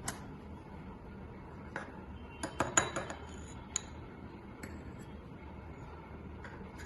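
Scattered sharp clinks of a metal utensil against a bowl, with a quick run of them about two and a half seconds in, while butter is being added to chocolate and milk for a ganache.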